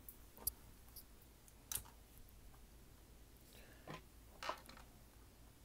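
A few faint, separate clicks and taps of a plastic Transformers figure in truck mode being picked up and handled on a wooden tabletop.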